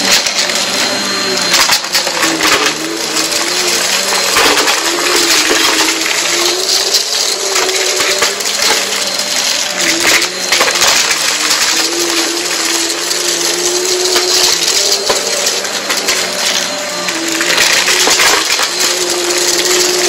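Vacuum cleaner running on a rug, sucking up crunchy dirt: dense crackling and rattling of grit going up the nozzle over the motor's steady whine, which wavers in pitch.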